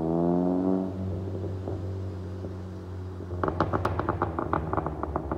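A car's engine revving hard, rising in pitch, then easing off about a second in to a low rumble. From a little past three seconds a rapid, irregular run of sharp crackles and pops sets in.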